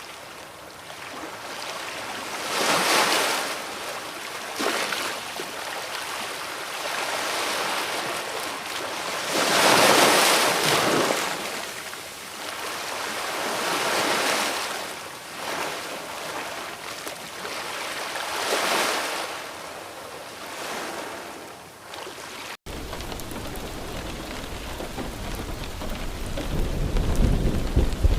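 Rushing noise that swells and fades in long surges every few seconds. About three-quarters of the way through it cuts abruptly to steady heavy rain with a low rumble.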